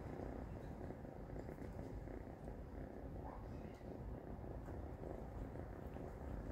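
Calico tabby kitten purring steadily while being scratched on the head.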